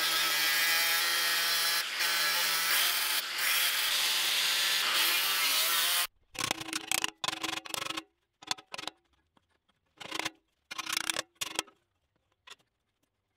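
Angle grinder with a thin cut-off disc cutting a slot in a steel plate, a loud continuous grinding that stops about six seconds in. Then a series of hammer blows on the plate, short ringing metal knocks at uneven intervals, knocking the cut piece free.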